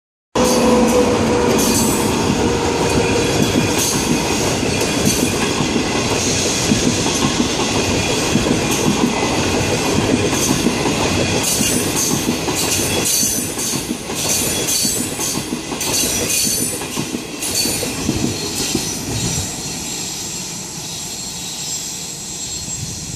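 Passenger train of 25T coaches behind an SS8 electric locomotive running past on the track, its wheels rumbling and clattering over the rail joints. The sound weakens slowly over the last several seconds as the train draws away.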